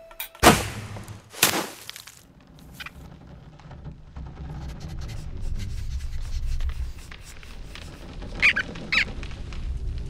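Cartoon sound effects: the sharp whoosh of an arrow loosed from a bow, then another sharp hit about a second later. A low rumble builds after that, with two short high squeaks near the end.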